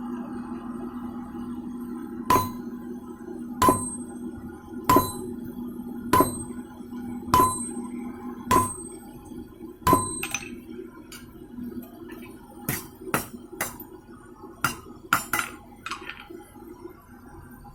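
Hammer blows on a steel bar on an anvil: seven evenly spaced ringing strikes a little over a second apart, then a quicker run of lighter taps. A steady low hum runs underneath.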